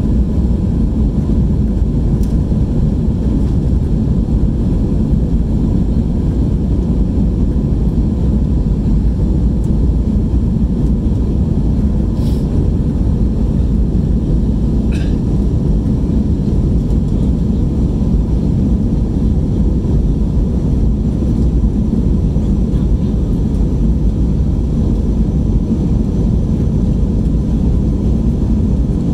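Steady cabin noise of an Airbus A320 in flight, heard inside the cabin from a window seat by the wing: even engine and airflow noise, deep and constant, with a faint steady hum above it.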